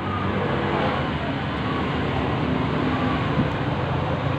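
Steady road traffic, with vehicle engines running close by.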